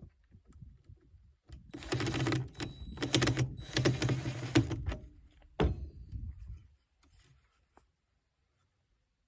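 Power drill running for about three seconds, with short pauses, as it drives a Phillips screw into PVC pipe, followed by a single knock about a second later.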